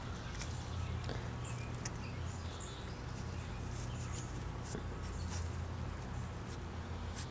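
Young puppies making short, high-pitched squeaks, with small ticks and scuffles scattered through, over a steady low hum.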